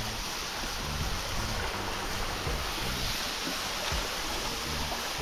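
Shallow stream rushing steadily over rocks close by, with an uneven low rumble of wind on the microphone.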